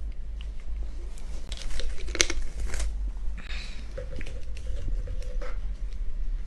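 Close rustling and crackling, then a short hiss, then a stomach growl held on one steady note for about a second and a half.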